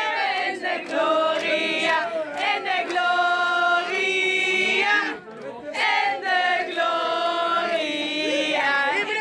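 A group of people singing together, with long held notes and a short break about five seconds in.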